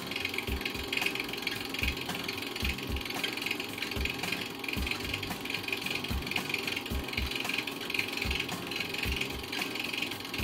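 8 mm film projector running, its film-advance mechanism clattering steadily.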